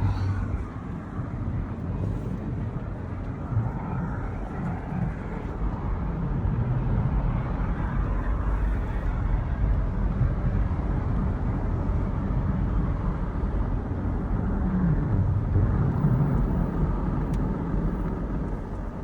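Snowmaking guns running with a steady, even roar, over a low rumble from a vehicle.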